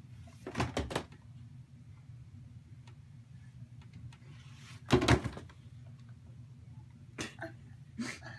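Board books being pulled off a wooden bookshelf and dropping onto a pile of books on a wooden floor: a quick double thud about a second in, the loudest thud about five seconds in, and two lighter ones near the end.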